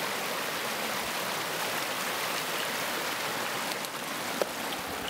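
Steady, even rushing noise of water, with one faint tick about four seconds in.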